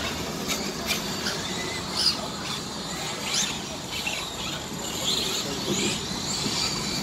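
Radio-controlled race trucks driving on an asphalt track in short throttle bursts, their motors giving short high whines and quick rising chirps over a steady outdoor background.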